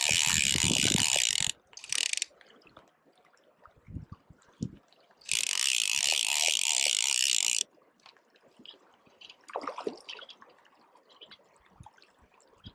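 Fly reel's click-and-pawl ratchet buzzing as a hooked grilse pulls line off it, in two runs: one about a second and a half long with a short burst just after, and a longer one of about two seconds midway through.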